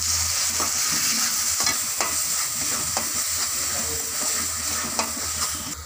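Onion-tomato masala frying in oil in a metal kadai, sizzling steadily as a thick ground onion paste is stirred in, with a metal spatula scraping and knocking against the pan again and again. The sizzle drops away sharply near the end.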